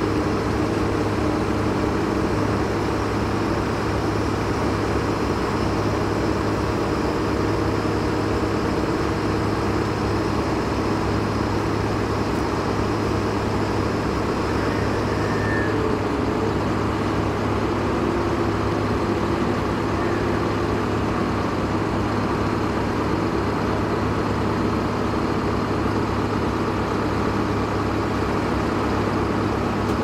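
Heavy machinery engine running steadily at one even pitch, a constant low drone.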